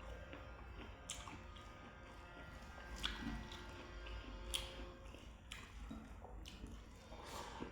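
A person chewing food close to the microphone, with about four sharp wet mouth smacks spread through the stretch, over faint background music.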